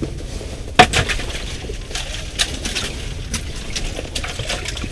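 Scattered clicks and knocks of an ice fishing rod and gear being handled, with one sharp knock about a second in, over a steady low hum.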